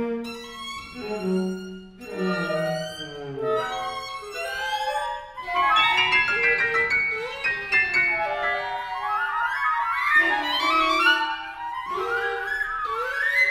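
Contemporary chamber music played live by flute, clarinet, violin, cello and keyboard. The pitches slide constantly, with falling glides in the first few seconds, then overlapping upward sweeps to the end.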